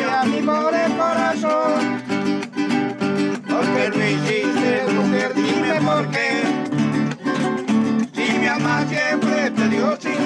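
Acoustic guitars and other plucked strings play a Colombian campesino tune together, with a steady strummed beat under a picked melody line.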